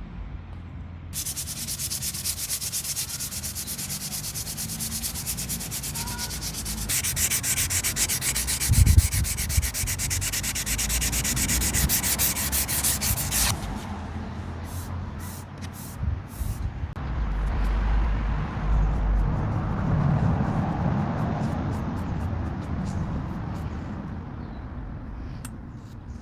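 Sanding a wooden axe handle: steady scrubbing of abrasive on wood, bright and dense for the first half, then softer and duller from about halfway through, with a few light clicks.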